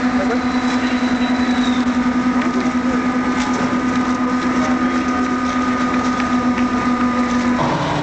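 Steady drone of the ferry's engines and shipboard machinery, a low hum with a fast, even throb, heard from the deck. The hum shifts to a different pitch near the end.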